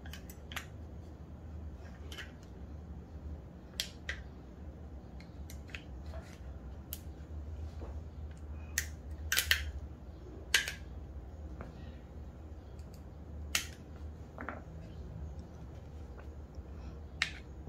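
Scattered small clicks and taps of Glock 19 Gen 5 pistol parts being handled and fitted together during reassembly, at irregular intervals, over a steady low hum.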